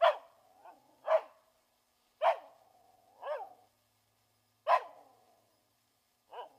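Hunting dog barking in the forest at something it has found: four loud, sharp barks a second or more apart, with softer barks between them.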